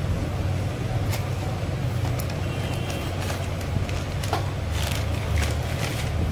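Small clicks and crinkles of a new bearing being handled and taken out of its cardboard box and plastic bag, over a steady low background rumble.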